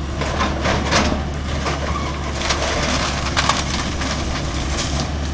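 Wooden house being crushed in demolition: a run of cracking, snapping and splintering timber, loudest about a second in and again past the middle, over a steady low rumble.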